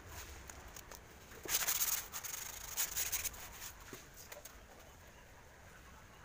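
A large white foam sheet rubbing and scraping as it is handled and cut, with two louder scrapes about one and a half and three seconds in and a soft rustle in between.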